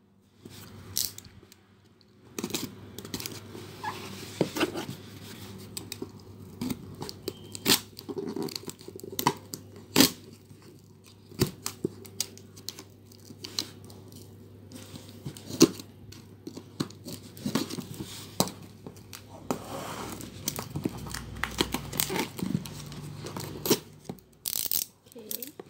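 Packing tape being cut and peeled off a cardboard shipping box. Irregular tearing rasps and rustles come with many sharp clicks and knocks from the cardboard being handled.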